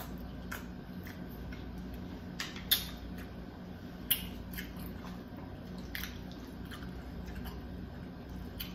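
Close-up eating sounds: chewing spaghetti squash with meat sauce and melted cheese, with soft wet mouth clicks and a fork scooping strands from a roasted squash shell. Two sharper clicks stand out near the middle, over a steady low hum.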